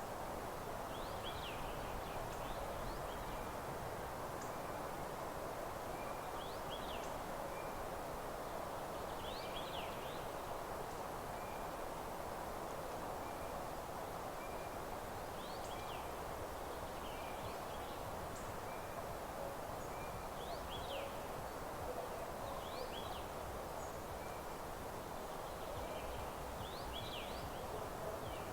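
Wild songbirds chirping in short bursts every few seconds, with a faint high peep repeating about once a second, over a steady rustling hiss in a forest meadow.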